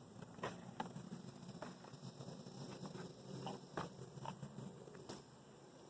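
A pet crunching a treat: irregular sharp crunches, about seven in all, over soft chewing.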